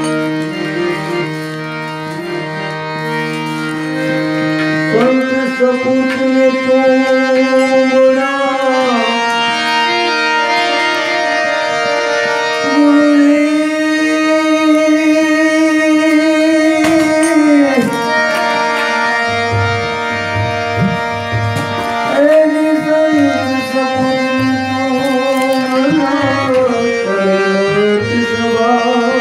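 Harmonium playing a Gujarati devotional bhajan while a man sings long, wavering held notes over it. Hand-drum strokes join in during the second half.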